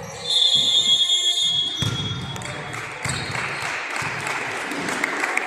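Basketball bouncing on a gym court in a steady dribble, with a loud, shrill steady signal tone lasting about a second and a half near the start, then general gym noise.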